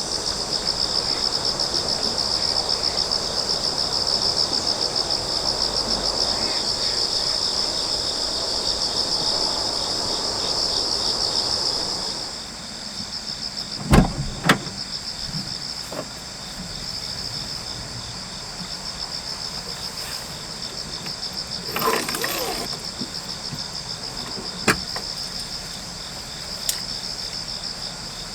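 Crickets chirring steadily with a fast pulsing trill. For the first twelve seconds a broad rushing noise runs under them and then drops away. A pair of sharp knocks come about halfway through, followed later by a short rustle and a few single clicks.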